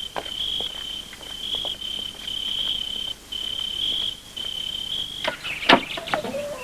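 Crickets trilling steadily in a high, even note that stops about five seconds in. A few short bird calls follow near the end.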